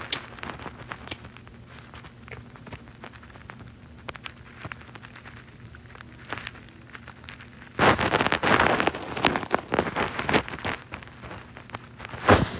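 Bedcovers and pillow fabric rubbing against the phone's microphone: faint scattered clicks at first, then loud, dense crackling rustle from about eight seconds in.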